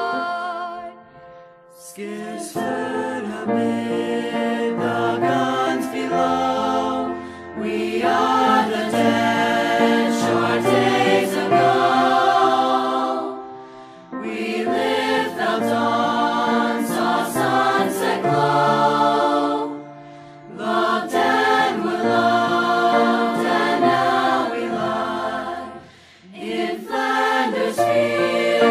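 Background music of a choir singing in slow phrases of about six seconds each, with short breaks between the phrases.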